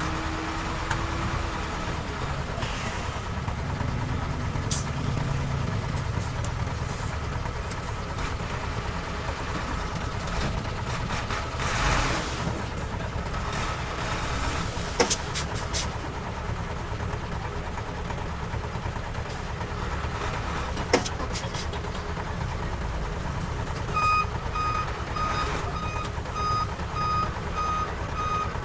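Heavy diesel earthmoving machinery running steadily, with a few sharp clanks. Near the end a reversing alarm starts beeping, about two beeps a second.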